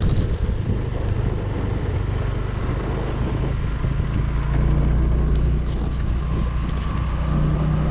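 Scooter engine running steadily while riding, with wind rushing over the microphone.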